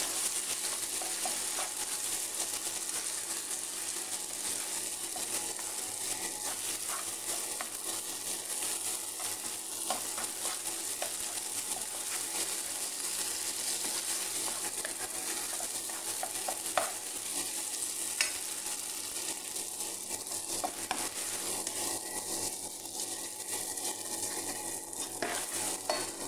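Raw rice filling sizzling as it is sautéed in a non-stick frying pan, with a wooden spatula stirring and scraping through it and scattered sharp taps against the pan.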